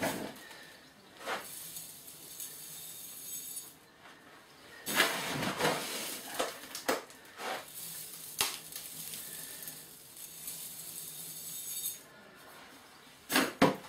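Granular bonsai soil poured from a scoop into a bonsai training pot: the grit hisses and rattles as it falls, in two main pours. A few sharp knocks of the scoop come through, the loudest near the end.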